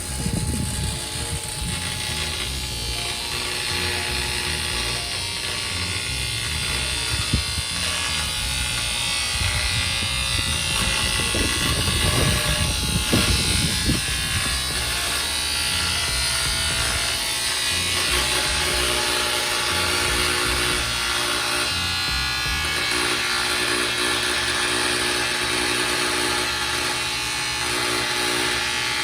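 Background electronic music with a stepping bass line, over a steady buzzing hum.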